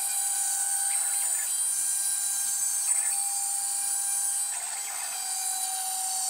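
WorkBee 1015 CNC router's 2.2 kW water-cooled spindle cutting plywood with a 1/8-inch downcut bit: a steady high whine with a constant lower tone, the cutting noise swelling every second or two.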